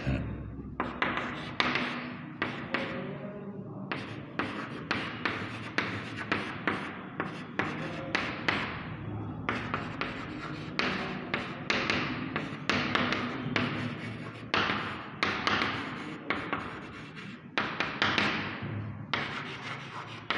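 Chalk writing on a blackboard: a quick run of short scratching strokes and taps, several a second, with brief pauses between words.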